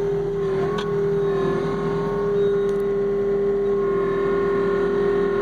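John Deere skid steer's diesel engine and hydraulics running steadily as the machine backs slowly up onto a truck bed, heard from inside the enclosed cab: a constant droning tone with a slight dip about half a second in.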